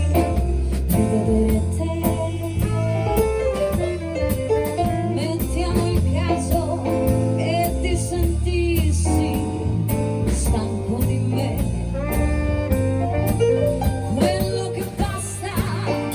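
Live band playing a song: a steady bass line with drums keeping time and a melody line over it.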